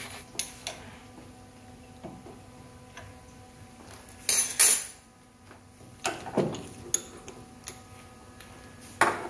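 Metal tools and parts clinking and knocking at a steel workbench and bench vise as a hydraulic line fitting is handled and fitted, with a loud clatter about four and a half seconds in and a few sharper knocks.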